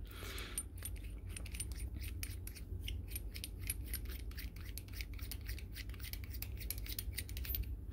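Metal threads of a door viewer's two halves being screwed together by hand: quiet, rapid ticking and rubbing of thread on thread.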